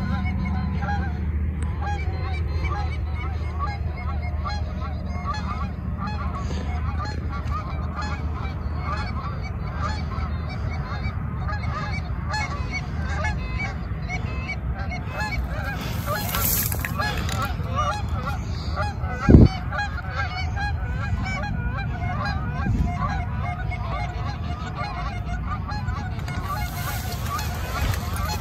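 A large flock of geese honking continuously, many calls overlapping into a chorus. One brief sharp thump comes about two-thirds of the way through.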